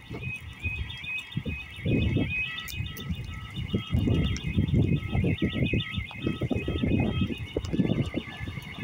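Level-crossing warning alarm sounding: a high warbling alarm tone repeating steadily while the barriers are down, with a shorter lower tone repeating alongside it. An irregular low rumble surges and fades underneath.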